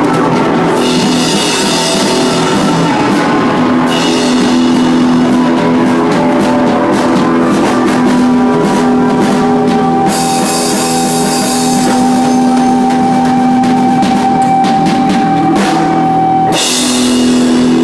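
Live rock band playing loud: electric guitars holding long sustained notes over a drum kit, with cymbal crashes washing in several times.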